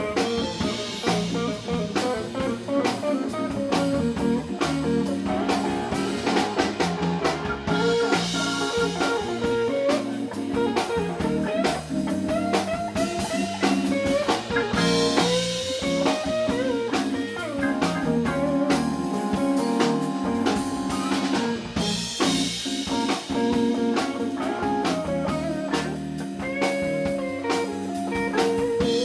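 Live band playing: a Hammond B-3 organ holding chords together with electric guitar, bass guitar and a drum kit.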